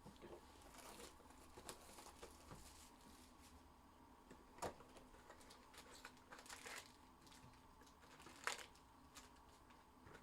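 Faint crinkling and tearing of packaging as a sealed hobby box of trading cards and its foil card packs are opened, with a few short, louder crackles.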